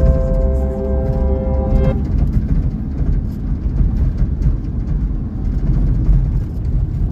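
Steady low road-and-engine rumble from inside a moving vehicle. Held musical notes sound over it and stop abruptly about two seconds in.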